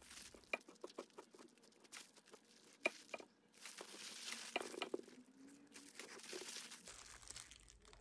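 A bread knife sawing through a sandwich of sliced bread, ham and cheese, with disposable plastic gloves crinkling as the hands hold and part it. Faint scattered crackles, then a longer rustle from about halfway.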